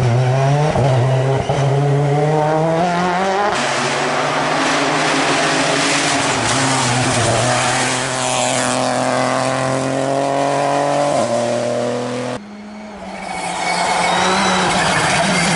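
Rally cars at full throttle: a Citroën C3 rally car and a Peugeot 208 Rally4, each engine rising in pitch as it revs and dropping at gear changes as it passes. The sound cuts abruptly from one car to the next a few times.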